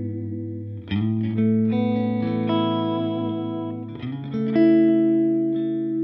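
Electric guitar played through a Line 6 Helix modelling a Matchless CH1 amp into a Greenback speaker cab, miked with a Royer 121 and an EV 408. Big open-string chord voicings in E major ring out, with a new chord struck about a second in, a couple more soon after, and another change around four seconds in.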